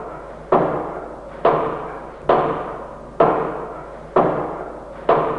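Clattering of the grinding gear in an 1865 tower windmill, the wooden shaking shoe that feeds grain between the stones: a sharp wooden knock about once a second, each one ringing out before the next.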